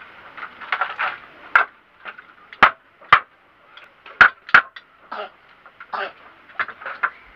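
Hammering and knocking on a wooden bed frame during repair: irregular sharp blows, five of them loud, with softer clatter of wood and tools between.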